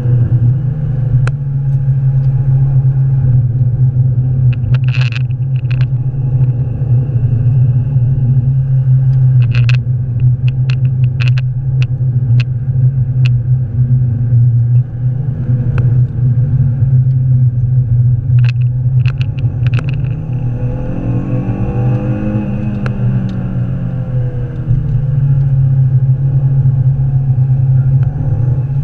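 Renaultsport Clio 182's 2.0-litre four-cylinder engine driven hard on track, heard from inside the cabin as a loud steady drone with road rumble and clusters of sharp clicks and rattles. About two-thirds through, the drone eases for a few seconds while the pitch sweeps up and down, then it picks up again at full strength.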